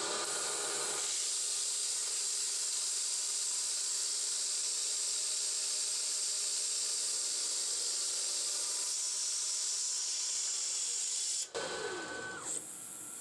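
Steady hiss of coolant spray over the running spindle of a 9x20 CNC lathe while a mini cutoff tool parts off stainless steel tubing. The sound breaks off abruptly about eleven and a half seconds in, and a falling whine follows as the spindle winds down.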